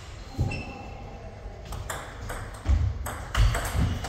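Table tennis rally: the celluloid ball clicks sharply off the paddles and the table, back and forth. Several heavier thuds come in the second half.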